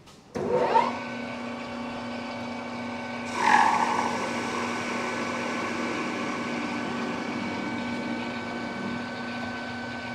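Precision Matthews metal lathe starting up about half a second in, its whine rising as the spindle comes up to speed and then running steadily. A few seconds in, a brief louder rasp as the turning tool bites into the spinning shaft, and the cut goes on under the steady machine whine.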